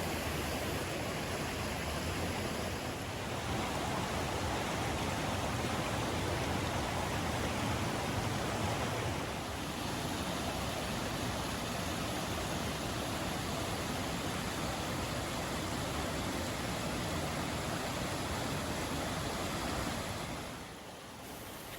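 Steady rushing noise with no distinct events. It dips briefly about three and nine seconds in and falls to a lower level near the end.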